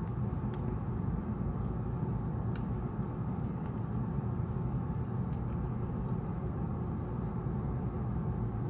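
Steady low background rumble, with a few faint small clicks from fingers working a flex cable connector onto an iPhone 6S logic board.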